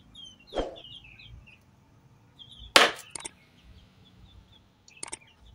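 Hollow knocks of empty plastic jerry cans being handled and set down against each other, a few separate strikes with the loudest about three seconds in. A small bird chirps at the start.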